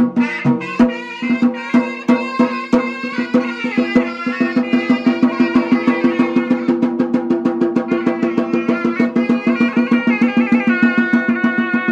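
Traditional Himachali temple folk music: a sustained melody over drums. The drumming settles into a fast, even beat about four seconds in.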